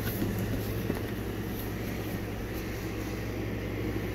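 Cardboard box flaps handled and folded open, with a faint tap near the start and another about a second in, over a steady low background hum.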